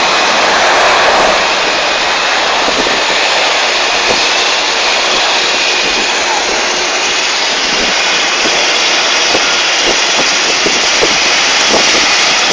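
Jet airliner engines, a loud steady rushing noise with a faint high whine held throughout.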